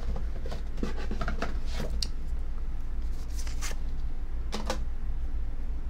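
Light knocks, clicks and rustles of small merchandise items and a book being handled and set down, over a steady low hum.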